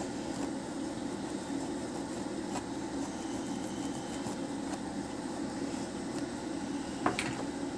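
Steady mechanical hum, with a single short click about seven seconds in.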